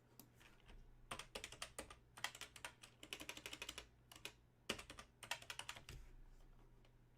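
Typing on a computer keyboard: two runs of quick keystrokes with a short pause between them.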